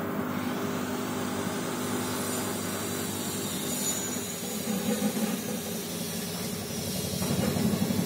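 LG 7 kg inverter direct-drive front-loading washing machine running, its drum turning with a steady mechanical hum that grows louder about seven seconds in.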